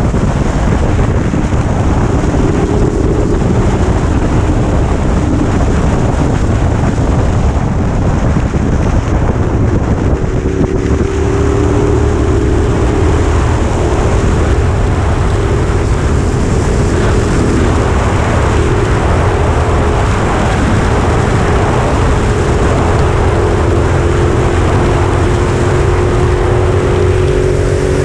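Motorcycle engine running at a steady cruise, with heavy wind noise on the microphone. From about ten seconds in, the engine note is clearer and climbs slowly in pitch.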